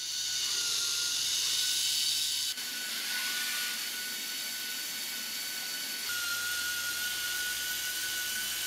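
Small electric motors of a ball-handling competition robot whirring steadily: a thin, even whine over hiss, changing abruptly twice where the shots are cut.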